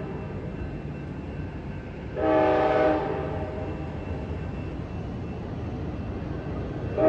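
Amtrak San Joaquin train's horn giving one short blast about two seconds in, and another starting right at the end. Under it is the low steady rumble of the train pulling away.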